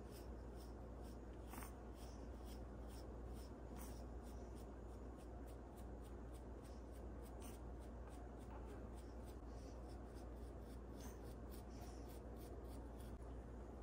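Soft-bristled bamboo toothbrushes scratching through a wet long-haired chihuahua's fur on his head, a run of faint brushing strokes, a few each second, over a steady low hum.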